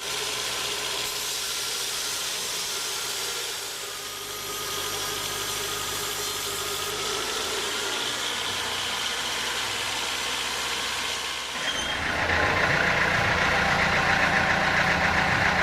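Sawmill machinery running with a steady mechanical hum and hiss; about twelve seconds in it becomes louder and rougher.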